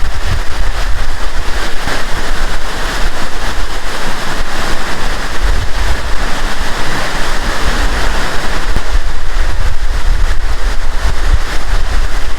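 Latourell Falls pouring into its plunge pool: a loud, steady rush of falling water, with an uneven low rumble from air and spray buffeting the microphone.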